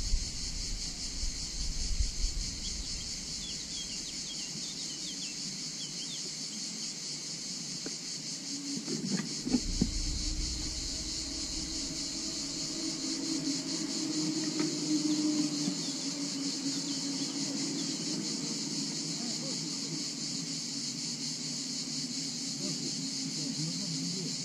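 A dense, steady chorus of insects buzzing at a high pitch. A gust of wind hits the microphone about nine seconds in, and a faint low hum swells in the middle.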